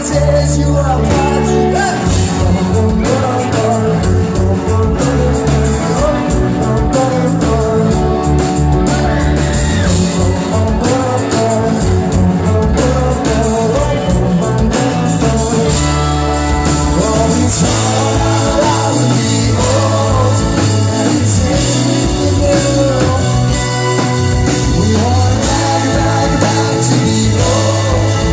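Live rock band playing loud and steady: a male lead singer over electric guitars, bass and drums, heard from the crowd on the club floor.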